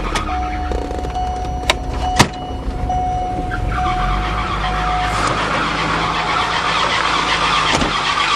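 Volvo turbo engine running, with a repeated electronic beep and two sharp clicks in the first couple of seconds. From about five seconds in, a fast rattling takes over: the radiator hose being struck by the engine fan.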